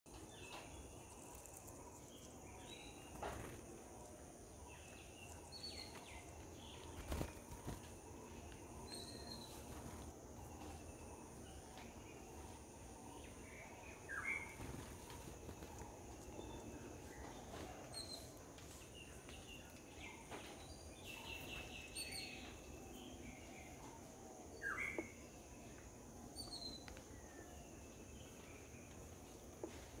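Faint background of scattered short bird chirps and whistles, some sliding downward, over a steady high-pitched insect drone. A few soft knocks are heard now and then.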